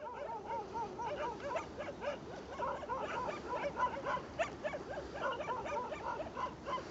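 A chorus of many short, rising-and-falling animal calls, yelp-like and overlapping in quick succession, over a faint hiss.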